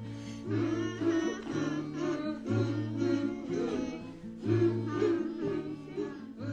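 Background music with a repeating bass line.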